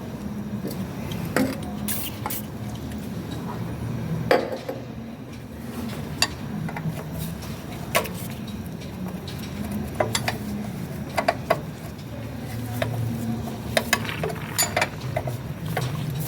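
Metal tools and parts clinking and tapping in irregular sharp clicks during hands-on repair work, over a steady low hum.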